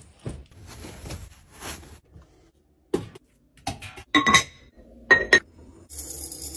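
Fabric rustling, then a few sharp glassy clinks, then a metal scoop digging into scent-booster beads in a glass jar near the end.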